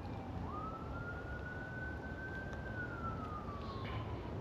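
Faint siren wailing: a single thin tone that dips, climbs quickly, rises slowly for a couple of seconds, then falls away toward the end, over a steady low background rumble.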